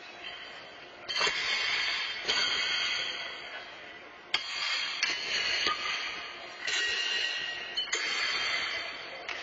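Pitched steel horseshoes clanging on the stakes across several courts, about seven metallic strikes at irregular intervals. Each one rings out and echoes through the large indoor arena.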